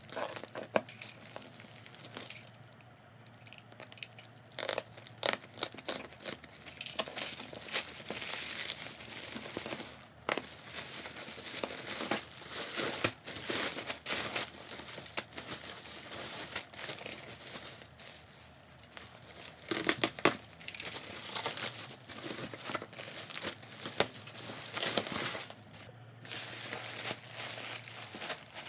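Plastic and paper packaging being crinkled and torn open by hand, in irregular rustling bursts with sharp crackles.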